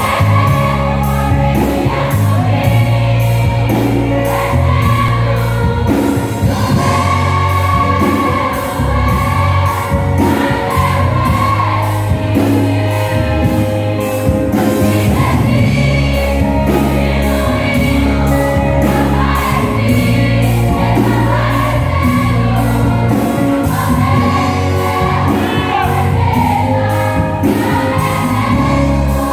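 Women's church choir singing a gospel hymn together over instrumental backing, with sustained bass notes and a steady beat.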